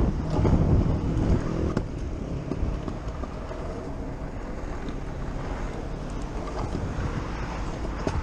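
Stunt scooter wheels rolling over concrete footpath and asphalt, a steady rumble loudest in the first second, with a few short clicks, and wind buffeting the microphone.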